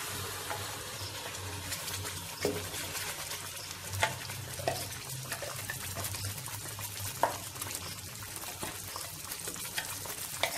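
Melted butter sizzling in a nonstick pan as a thick tomato and onion paste is scraped into it. A wooden spatula gives a few sharp clicks against the steel bowl.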